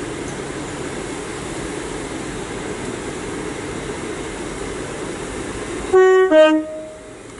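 Great Western Railway Class 800 IET pulling out of the platform with a steady hum of running. About six seconds in, it sounds a loud two-note horn, a short high note then a lower one, each under half a second.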